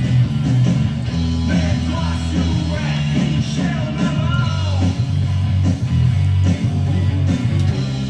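Rock song playing, with guitar, a steady bass line and a sung vocal.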